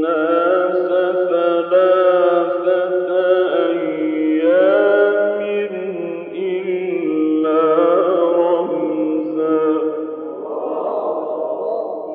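A male reciter chanting the Quran in the slow, melismatic mujawwad style: one long phrase of held notes with gliding, ornamented pitch, which thins out near the end.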